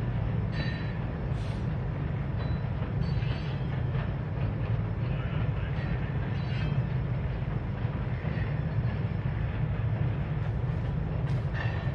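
Freight cars rolling across a steel truss railroad bridge: a steady heavy rumble of wheels on the rails, with brief high-pitched squeals every few seconds.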